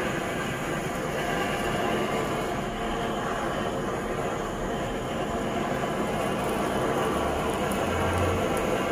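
Handheld gas blowtorch burning with a steady rushing hiss as it singes the hair off a buffalo foot.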